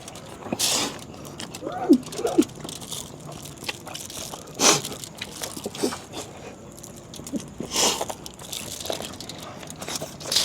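Close-up eating sounds: chewing and crunching food, with a few louder crunchy bites every few seconds among smaller mouth clicks.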